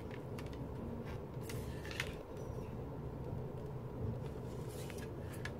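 Faint clicks and light rustling of a plastic CD jewel case and its paper booklet being handled, a few scattered taps, over a steady low background hum.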